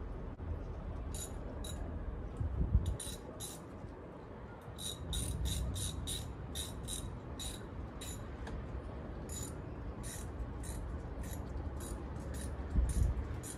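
Light metallic clicks in runs, at times about three a second, from hand-tool work fastening a front license plate bracket's bolts into a bumper, over a steady low outdoor rumble. Two heavier low thumps come about three seconds in and again near the end.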